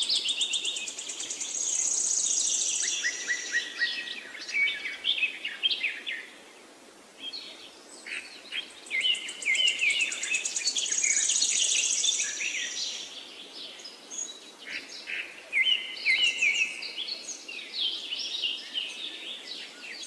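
Many birds chirping with overlapping high, quick calls, easing into a short lull about seven seconds in before picking up again.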